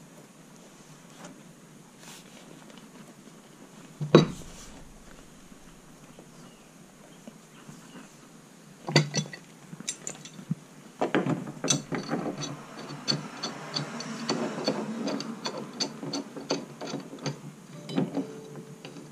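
Pipe wrench tightening a brass fitting into a plastic water tank's outlet. A single knock about four seconds in, then from about eleven seconds a run of metallic clicks and scraping at about two a second, as the wrench jaws bite and are reset on the fitting.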